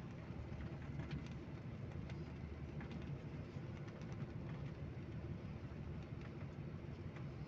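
Steady low rumble of an intercity coach on the move, engine and road noise heard from inside the passenger cabin, with faint scattered ticks.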